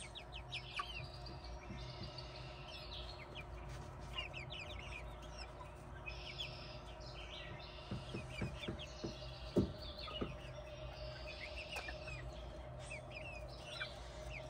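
Hens clucking and chirping softly in short, quick calls, with a few soft taps and one louder knock a little past the middle.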